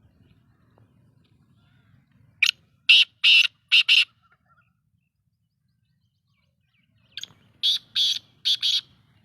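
Black francolin calling: two phrases of about five short, harsh notes each, the first about two and a half seconds in and the second near the end.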